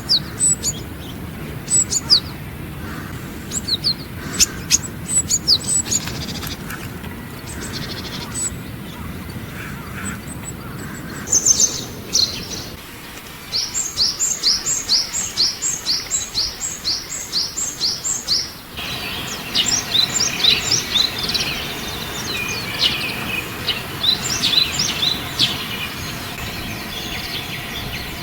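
Small wild birds calling and singing: a series of short high chirps, then a run of about a dozen evenly spaced short notes, then busier overlapping calls. The background changes abruptly twice, as recordings are cut one after another.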